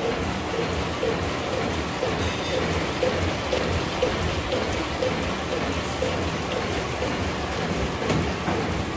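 Shiki PC-4530MWLP flatbed label printing press running: a steady, dense mechanical clatter with a repeating beat about twice a second.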